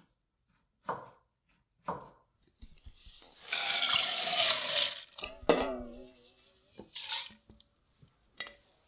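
Soaked rice and water poured from a stainless steel bowl into a heavy black pot: a rushing pour lasting about two seconds, then a metal clink that rings briefly, and a second, shorter pour. Before the pour come three knife chops on a wooden cutting board, about a second apart.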